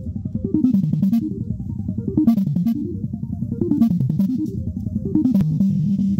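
Music played loud through a speaker tower box of car-audio drivers, with drums and a bass line that slides up and down over and over.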